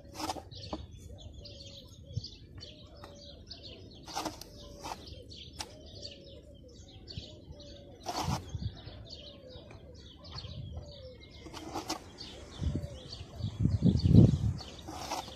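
Small birds chirping steadily, with a few sharp knocks of a trowel against stone blocks a few seconds apart. Near the end comes a louder low scraping and thudding as the blocks are worked.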